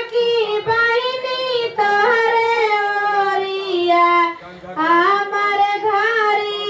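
High-pitched unaccompanied singing: one melodic line of long held, gliding notes, with a short pause for breath about four and a half seconds in.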